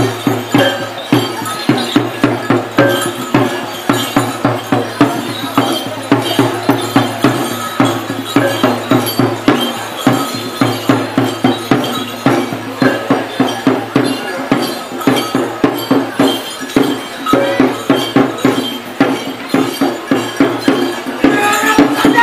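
Kabasaran war-dance accompaniment: a drum beaten in a steady rhythm of about three strokes a second over ringing metal percussion, with voices shouting near the end.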